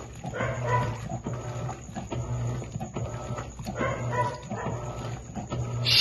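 Electrolux Premium Care LEC17 washing machine running a wash cycle: the motor hums in low strokes that swell and fade about every second and a half to two seconds, with water churning in the tub.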